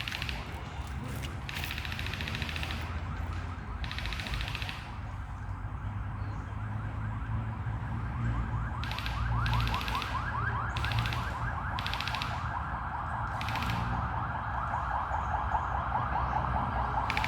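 Airsoft gun fired in short full-auto bursts, seven or eight rapid rattling strings of shots, with gaps of a second or several between them. Underneath runs a steady, fast-pulsing warble that grows louder in the second half.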